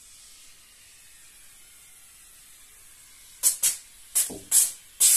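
PU adhesive foam gun dispensing foam: a faint hiss at first, then about halfway through, a run of short, loud hissing spurts as the trigger is squeezed, from a can that is nearly empty.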